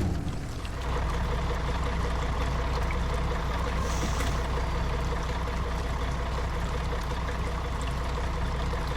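Intercity coach heard from inside the cabin: a steady low engine hum with a constant hiss of rain and road noise over it.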